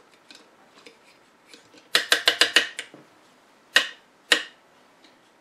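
Sharp mechanical clicks from small hard parts being handled on the test bench: a quick run of about seven clicks about two seconds in, then two single clicks half a second apart.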